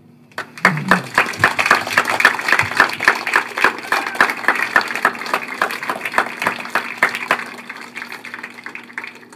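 Spectators applauding, individual claps distinct and rapid, thinning out and dying away near the end, over a steady low hum.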